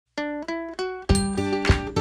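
Background music: three single plucked-string notes rising in pitch, then about a second in a fuller arrangement with a bass line and a beat comes in.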